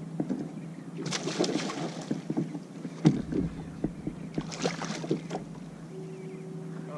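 Knocks and clatter of handling on a fishing kayak, with two short bursts of rushing noise, about a second in and again past four seconds.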